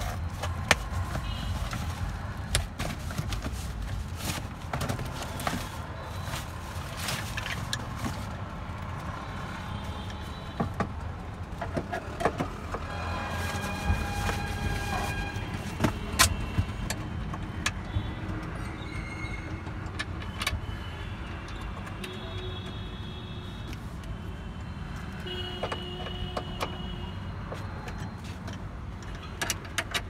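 Scattered clicks, knocks and cardboard rustles of hands opening a cardboard parts box and then handling a seat belt retractor and its webbing inside a car, over a steady low rumble. The clicks are thickest in the first several seconds and thin out later.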